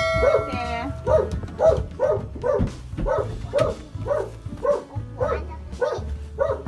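A dog barking over and over, about two short barks a second. A bright chime sounds at the very start.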